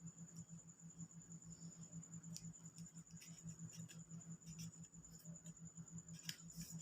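Faint paper handling: scattered small clicks and rustles as cut paper pieces are handled and pressed down with glue, over a steady low electrical hum and a thin high whine.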